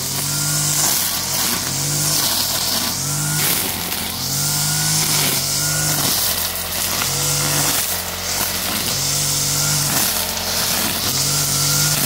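Petrol brush cutter's small engine running at high speed, its pitch dipping and recovering about every second and a half as the blade sweeps through the weeds and takes the load.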